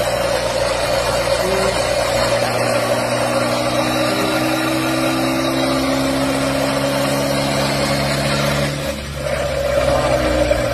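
Ford Fusion drivetrain running with a steady hum ("ronco") from the transfer case and rear differential, its pitch rising slightly, with a brief dip about nine seconds in before it picks up again. The hum is the sign of a badly worn differential.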